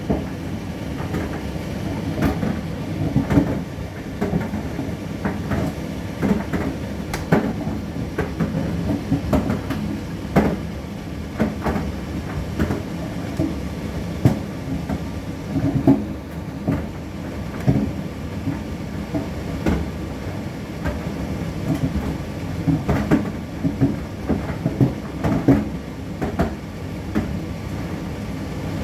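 Indesit IDC8T3B condenser tumble dryer running: a steady low rumble with frequent irregular knocks and clicks.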